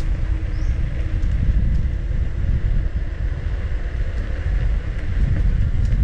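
Wind buffeting the microphone of a moving rider on an electric unicycle, a steady rumble that rises and falls. There is a faint high chirp about half a second in, and a few light clicks near the end.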